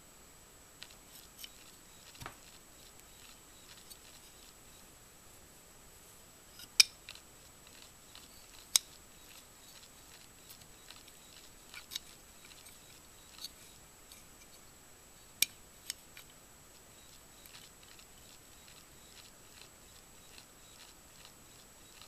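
Scattered small clicks and taps of metal parts being handled and fitted on an AR-15 lower receiver, with a few sharper clicks about 7, 9, 12 and 15 seconds in.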